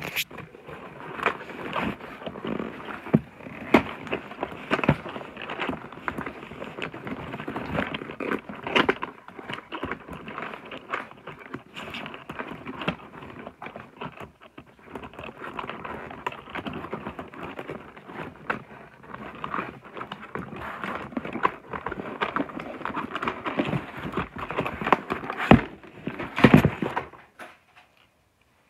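A boxed dinosaur toy being unboxed: plastic and cardboard packaging rustling and crackling, with many sharp clicks and knocks, stopping near the end.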